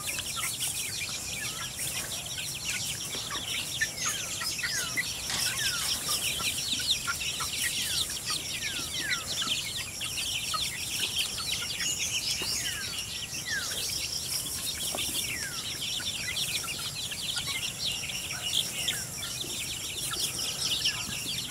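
A flock of young chickens peeping without a break, many short falling peeps overlapping.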